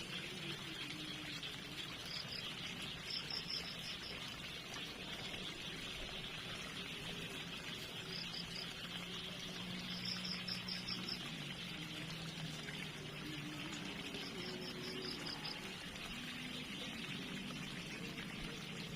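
Water trickling and flowing steadily, with short trains of rapid high chirps sounding five times.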